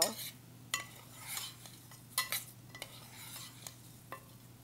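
A metal spoon stirring dry orzo pasta coated in oil in a stainless steel pot: scraping with irregular clinks against the pot.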